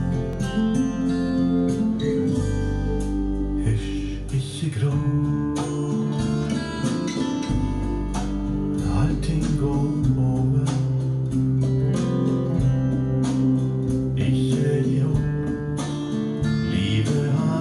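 Acoustic guitar music, plucked and strummed over a bass line, played back through Monitor Audio Platinum PL300 II floor-standing loudspeakers driven by an FM Acoustics FM 711 MkII power amplifier and heard in the room.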